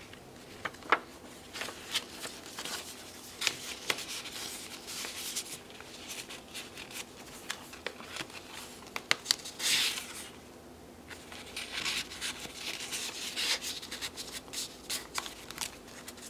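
Paper rustling with short taps and clicks as hands turn the pages of a handmade junk journal and slide paper tags and cards in and out of its pockets; one longer paper slide about ten seconds in.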